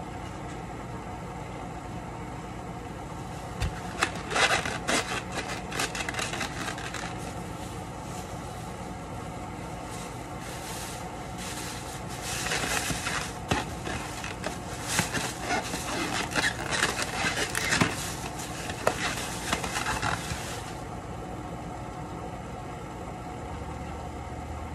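Thin plastic carrier bag crinkling and rustling as a styrofoam takeout container is handled and bagged, in two spells: a short one about four seconds in and a longer, louder one from about twelve to twenty seconds. A steady low hum runs underneath.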